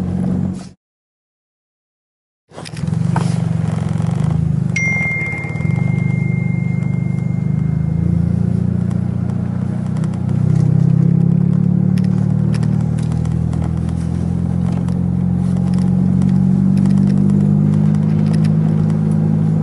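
Steady low drone of a car engine and road noise. The sound cuts out to silence for about two seconds near the start. A thin, high, steady tone sounds for about three seconds starting around five seconds in.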